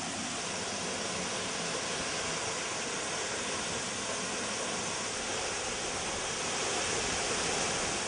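Waterfall: water pouring down a rock face and crashing onto the rocks below, a steady rushing noise.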